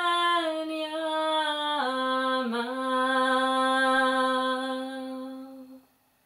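A woman's voice singing long, wordless held tones in a chant-like healing style, the pitch stepping down about two seconds in and dipping briefly soon after. The last note fades and stops just before the end.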